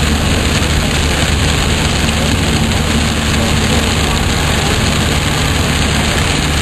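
Steady cabin noise of a car driving at highway speed in heavy rain: a low engine and road hum under a constant hiss of rain on the car and tyres on the wet road.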